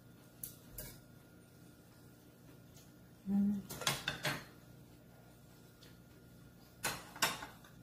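Metal chopsticks clinking against ceramic side-dish plates and a stainless steel bowl while eating: a few sharp clicks in three short clusters, about half a second in, around four seconds in, and near the end. A brief low hum comes just before the middle cluster.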